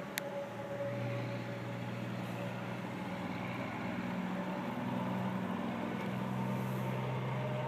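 Steady mechanical drone of several held humming tones, which the recorder suspects is a vacuum truck running up on the valley rim; it seems to come from the sky. A single sharp click just after the start.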